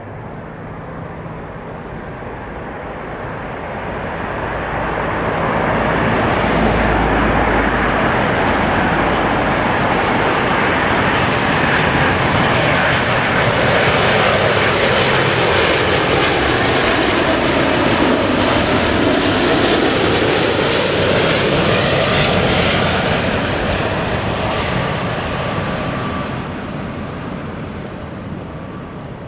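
Boeing 777 jet airliner on approach with landing gear down, passing overhead. Its engine noise swells a few seconds in, stays loud through the middle with a sweeping whoosh as it goes over, then fades away near the end.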